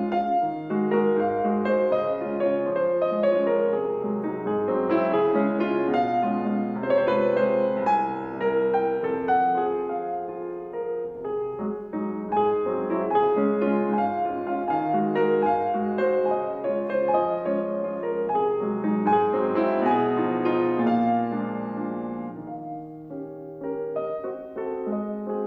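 Grand piano played solo: a flowing classical passage of quick notes that grows softer near the end.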